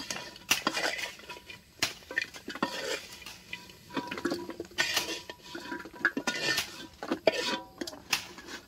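Metal spatula scraping and clinking against a wok, stirring fried banana chips and scooping them out onto a plate, in irregular knocks and scrapes.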